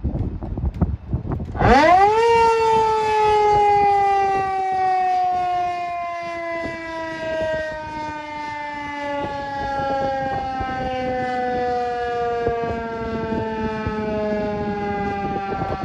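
Federal Signal 2001-130 rotating electromechanical warning siren in a growl test. After a few knocks it spins up sharply, in under a second, to a loud wail, then winds down slowly, its pitch falling steadily.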